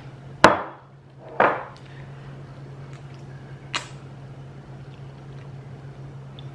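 Two sharp breathy puffs about a second apart, a person blowing to cool a forkful of hot ramen noodles, then a short slurp of the noodles near four seconds in. A steady low hum runs underneath.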